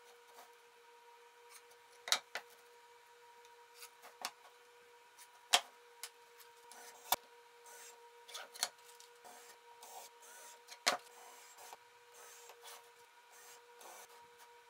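Plywood panels and screws being handled on a workbench: scattered sharp knocks and clicks of wood and metal set down, with light scraping and rubbing between them, over a steady faint hum.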